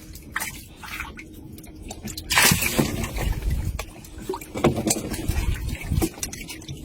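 Water sloshing and splashing in irregular bursts, the loudest about two and a half seconds in, with scattered short knocks between.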